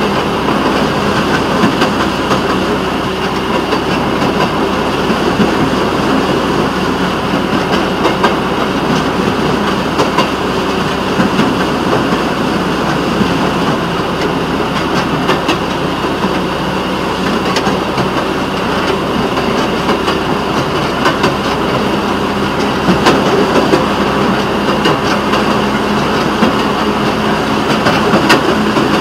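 Rail motorcar (speeder) running along the track: a steady engine note under a dense rushing noise, with the wheels clicking over the rail joints.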